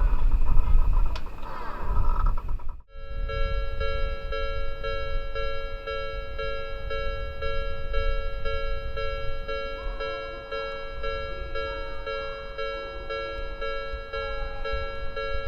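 An Odakyu train running over the level crossing with loud rumbling wheel noise, cut off abruptly about three seconds in. After the cut the crossing's electronic warning bell rings steadily, with a low rumble beneath.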